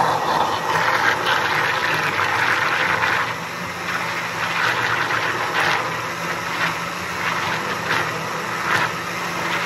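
Countertop blender motor running steadily, blending a jar filled to the top with liquid flan batter and breaking down the cinnamon in it.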